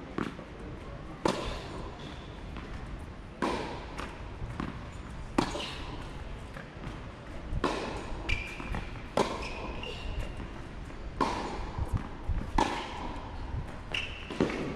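Tennis rally on a hard court: the ball is struck by rackets and bounces on the court, a sharp hit or bounce about every one to two seconds.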